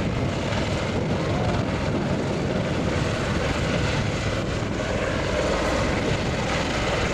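Bell Boeing MV-22B Osprey tiltrotor in helicopter mode, nacelles upright, its two proprotors and Rolls-Royce Liberty turboshaft engines running with a steady low drone as it flies low and slow.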